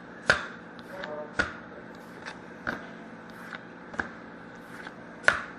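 Trading cards being flipped through and laid down by hand, each giving a sharp snap or tap, about one every second and a bit, with a few fainter clicks between.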